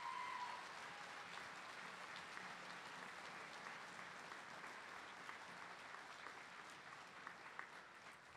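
An audience applauding, steady clapping that tails off near the end, with a short high-pitched call from the crowd at the very start.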